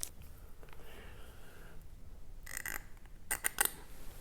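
Small hardware being handled: two short clusters of sharp clicks and rattles, a little after halfway and near the end, like screws being picked up and clinking together.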